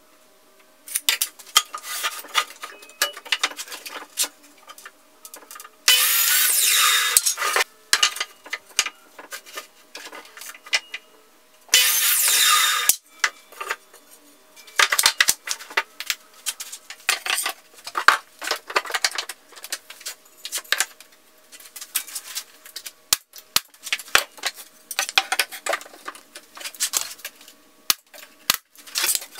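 Workshop clatter of wooden boards and hand tools being handled and knocked on a bench, with two short, loud bursts from a Hitachi compound miter saw cutting the wood, about six and about twelve seconds in.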